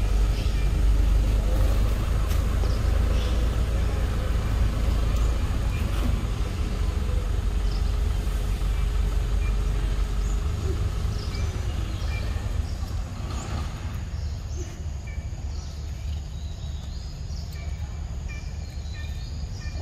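A motor vehicle's engine running, a low rumble with a steady hum that drops in pitch about eleven seconds in and then fades, leaving scattered faint high chirps and clicks.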